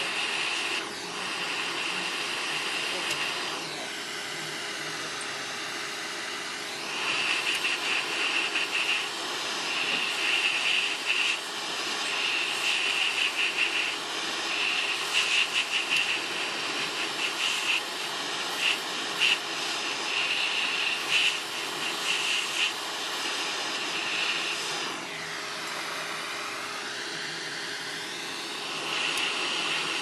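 Hot air rework station nozzle blowing at high airflow (80%) onto a phone motherboard's metal shield: a steady rushing hiss whose tone sweeps as the nozzle is moved around the shield. From about seven seconds in until near the end, irregular clicks and scrapes of a steel scalpel prying at the shield.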